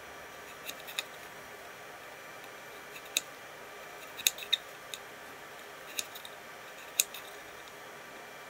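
Tiny miniature kitchen knife cutting through small pieces of raw carrot, the blade clicking crisply against the wooden cutting board. There are about eight separate sharp clicks, irregularly spaced, several of them close together about halfway through.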